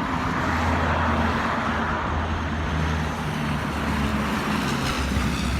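Steady low engine rumble under a broad roar that swells about a second in.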